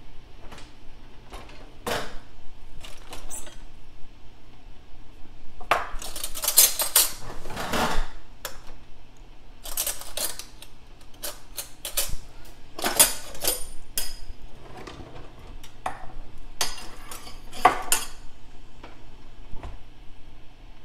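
Irregular metallic clinks and scrapes against a stainless steel pot, coming in denser clatters several times, over a steady low hum.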